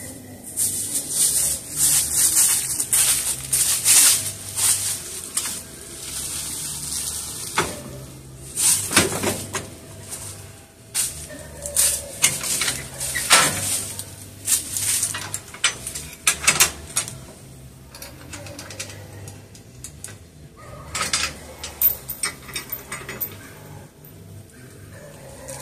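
Footsteps crunching through dry fallen leaves, with irregular metal clanks and rattles as a small utility trailer's tongue and jack are handled to couple it to a hitch.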